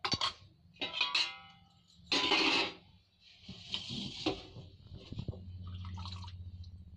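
Metal spoon stirring and scraping black chickpeas through bubbling masala in a metal pot, with a short ringing clink about a second in and a louder scrape a second later. A low steady hum comes in near the end.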